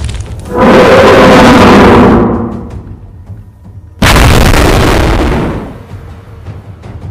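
Two dinosaur-roar sound effects from animated Tyrannosaurus rex. The first comes about half a second in, is deep and pitched, and fades over about two seconds. The second starts suddenly about four seconds in and lasts under two seconds.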